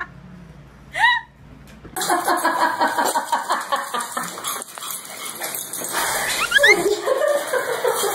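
Small dogs yapping and barking over and over, several times a second, with a few quick rising squeaks about six and a half seconds in. One short call comes about a second in, before the yapping starts.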